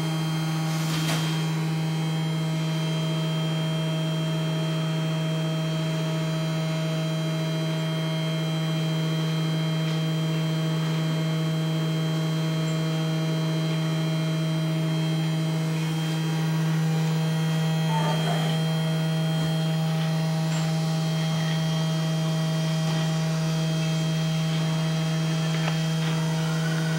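Small desktop PCB milling machine humming steadily: a low electric hum with a fainter whine above it. There is a light click about a second in.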